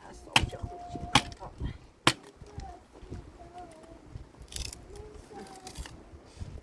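Three sharp knocks, each about a second apart, in the first two seconds, then a few fainter ticks.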